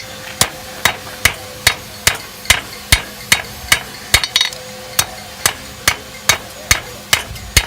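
Blacksmith's hand hammer striking hot steel on an anvil at a steady pace, about two to three blows a second, each with a short ring: drawing out the stem of a forged leaf.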